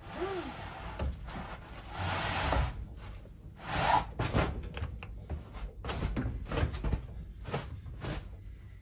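Mattress being handled and laid onto a plywood bed-lift platform: rustling, rubbing scrapes, then a run of light knocks and bumps in the second half.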